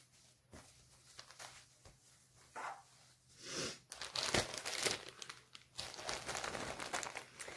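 Crinkling and rustling of cross-stitch project materials being handled, starting a couple of seconds in and loudest around the middle.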